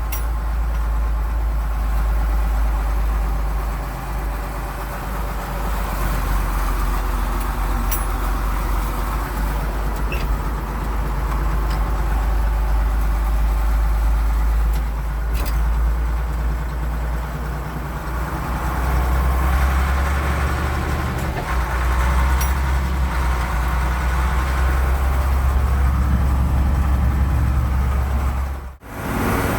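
A farm vehicle's engine running steadily, with its low drone growing heavier from about two-thirds of the way in. The sound cuts out briefly near the end.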